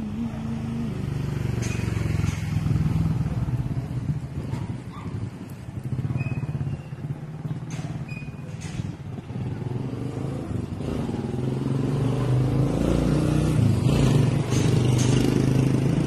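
A motor vehicle engine running, its low note shifting in pitch and growing louder over the last few seconds, with a few faint clicks.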